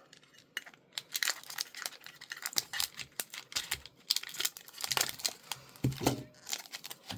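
Foil wrapper of a Pokémon TCG booster pack crinkling as it is handled, with irregular crackles that come and go.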